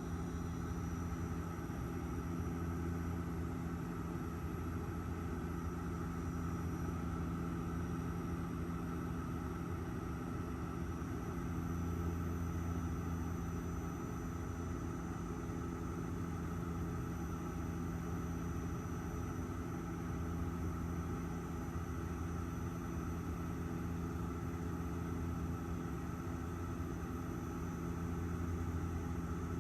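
Airliner cabin noise with the engines running: a steady low drone with several hum tones and a thin high whine, unchanging throughout.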